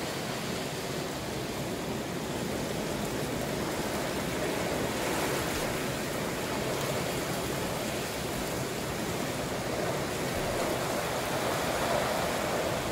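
Rain and gusting wind at night: a steady rushing hiss that swells a little about five seconds in and again near the end.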